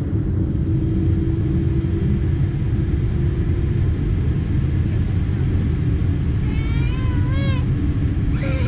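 Steady low rumble of a Boeing 787 Dreamliner's GE GEnx engines, heard inside the cabin from a seat over the wing as the aircraft taxis. About seven seconds in, a brief high-pitched voice rises and falls over the rumble.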